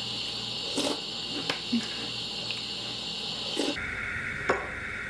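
Eating cereal from a bowl: a spoon clicks against the bowl a handful of times, with chewing, over a steady hiss.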